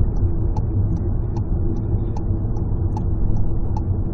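Vehicle's engine and road rumble heard inside the cabin, with a regular light ticking about two and a half times a second from the turn indicator as the vehicle pulls over.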